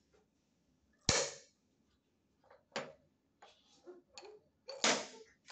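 Wooden rings of a stacking toy knocking against the wooden peg and tabletop as they are fitted on: a sharp knock about a second in, a few lighter clicks, then another loud knock near the end.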